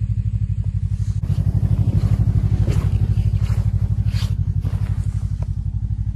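Snowmobile engine running with a steady, fast pulsing beat, growing slightly louder about a second in as the machine moves along the trail. A few brief scrapes sound over it.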